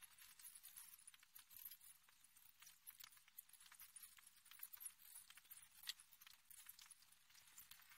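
Near silence, with faint, irregular high clicks and crackles.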